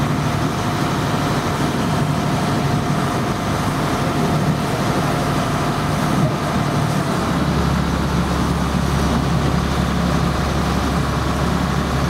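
Vaporetto water bus engine running steadily, with a deeper low rumble coming in about seven seconds in.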